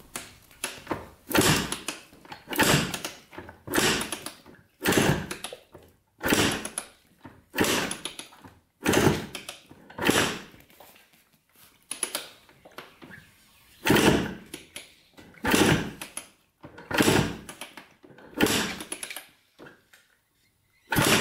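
1980 Kawasaki KDX175 two-stroke single being kicked over again and again with the throttle held open and a compression gauge in the spark-plug hole: a compression test. Each kick is a short burst of noise, about one every second and a half, some fourteen in all.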